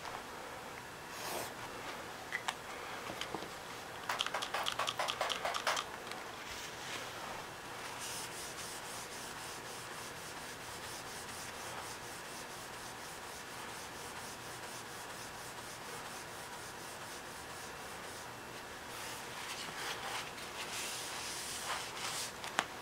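Hand scrubbing of a painted surface to rub off black Sharpie marker: rapid back-and-forth rubbing strokes. The strokes are loudest in a burst about four seconds in and again near the end, and fainter in between.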